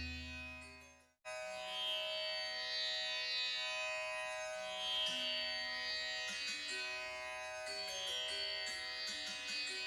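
Background instrumental music in an Indian classical style: a plucked-string melody over a steady drone. A low note dies away at the start, there is a brief silence about a second in, then the music starts again.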